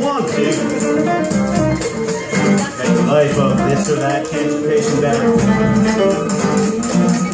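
Live acoustic music: an acoustic guitar playing while maracas are shaken in a steady rhythm.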